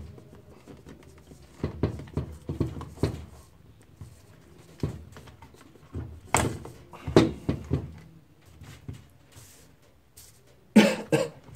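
Plastic clicks and knocks from a Lexmark MS310/410/510 laser printer drum (imaging) unit being handled and taken apart by hand. They come in irregular clusters, the loudest near the end.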